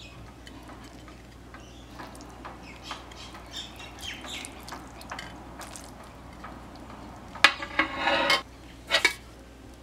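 Stir-fried water spinach being served into a ceramic bowl: light taps and clatter of a utensil and food against the dish, then near the end a louder clatter lasting about a second, followed by two sharp knocks.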